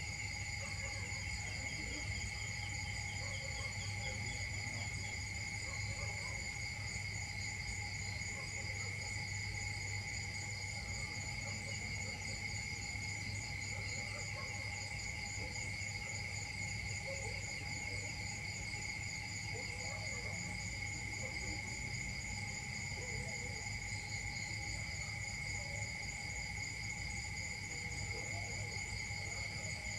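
Steady chorus of insects, several trilling at once at different pitches, the highest ones finely pulsing, with a low steady rumble underneath.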